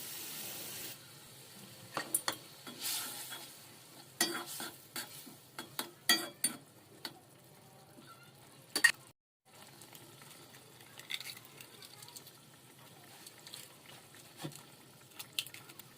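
Food frying in a pan, stirred with a utensil that scrapes and knocks against the pan now and then, over a sizzle; a short hiss in the first second, and the sound cuts out briefly about nine seconds in.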